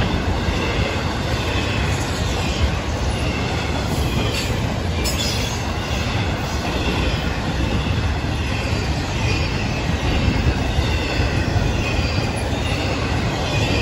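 Florida East Coast Railway intermodal freight cars rolling past at speed: a steady rumble of steel wheels on rail, with a faint high squeal from the wheels.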